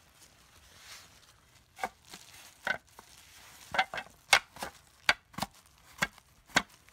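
Handling and scrubbing noise. About two seconds in, a run of about a dozen sharp, irregular clicks and knocks begins, as a hand scrubs degreaser-softened, caked-on grease off a part with a microfiber cloth while holding the phone.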